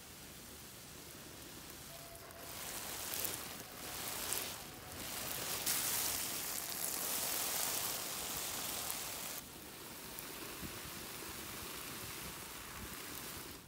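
Rustling hiss with no pitch to it, swelling louder from about two seconds in to about nine seconds in, then settling to a softer steady hiss.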